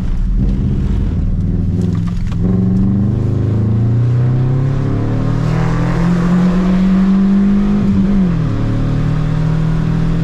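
GC8 Subaru Impreza's flat-four engine heard from inside the cabin on an autocross run, its pitch climbing under power, holding, then dropping sharply about eight seconds in. A hiss of tyres on the wet track rises with it through the middle.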